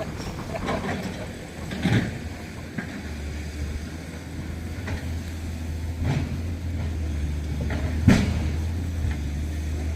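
A heavy vehicle engine running steadily with a low drone, with a few sharp knocks, the loudest near the end.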